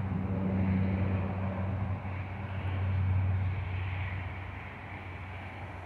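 Saab 2000 turboprop airliner climbing out after takeoff: a steady low propeller hum over the rush of its twin Allison AE2100 turboprop engines. It swells briefly, then slowly fades toward the end as it draws away.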